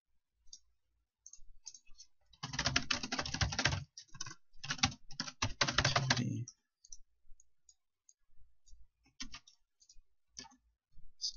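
Computer keyboard typing in quick runs from about two and a half to six and a half seconds in, with scattered single clicks before and after.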